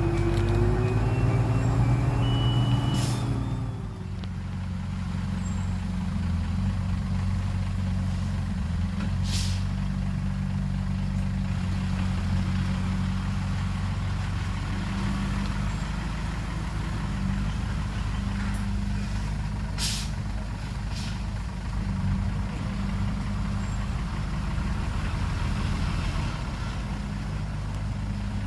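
Heavy dump truck's diesel engine running steadily, louder for the first few seconds, with short hisses of air from the air brakes a few times: about three, nine and twenty seconds in.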